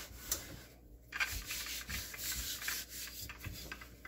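Wooden rolling pin rolling back and forth over floured dough on a wooden board: a gritty rubbing hiss that swells and fades with each stroke, after a short pause a little under a second in.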